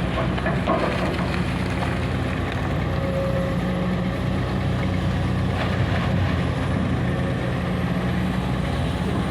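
Komatsu PC200 hydraulic excavator's diesel engine running steadily while digging coal, with a few short clatters from the work.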